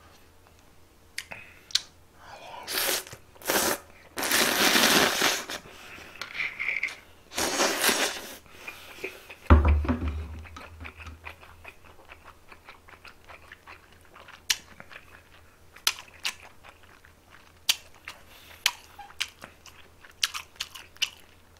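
Close-miked eating of buckwheat noodles (makguksu): several long, loud slurps in the first half, then a single dull thump, then steady chewing with many small crunching clicks.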